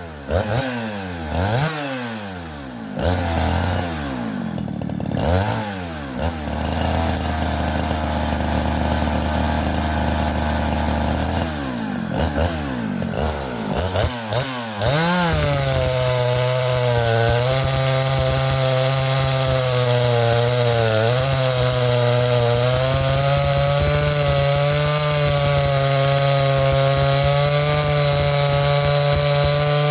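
Two-stroke chainsaw revving up and down, with a stretch at lower revs, for about the first fifteen seconds. It then holds a steady high-revving note with small dips, typical of the saw under load cutting through a fresh white oak log.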